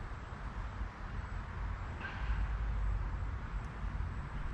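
Steady outdoor background noise at a creek: an even hiss with a low rumble that gets louder about halfway through.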